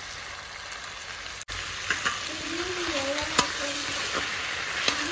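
Chopped vegetables sizzling as they are stir-fried in a steel pan, with the steel spoon knocking against the pan a few times in the second half.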